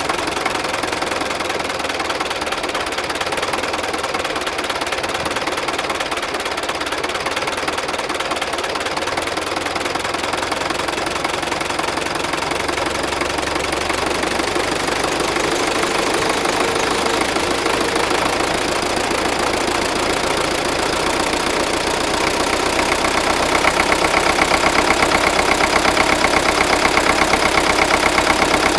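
MTZ-80 tractor's D-240 four-cylinder diesel running with a rhythmic knock, getting louder about three-quarters of the way through. The knock appeared after the injection pump and injectors were rebuilt, shows at mid revs, was not cured by retarding the injection timing, and its cause is unknown to the owner.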